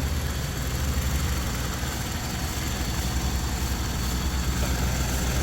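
Car engine idling steadily, a low hum under a constant hiss.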